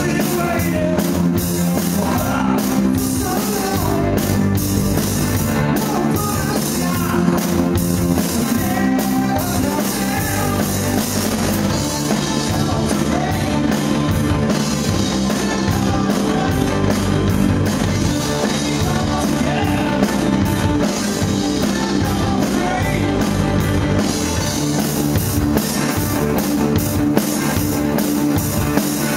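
Live rock band playing a song: distorted electric guitars over a steady drum-kit beat, loud throughout.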